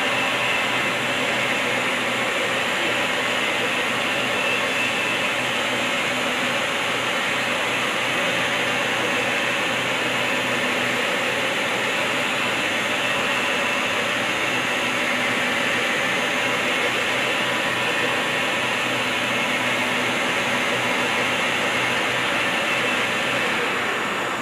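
Steady, even machinery noise from a CNC pipe-threading lathe running on the shop floor, with no distinct knocks or changes.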